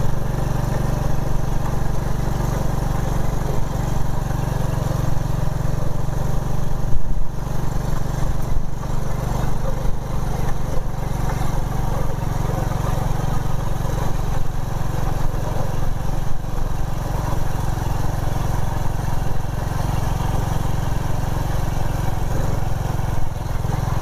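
Motorbike engine running steadily while riding along, with a single thump about seven seconds in.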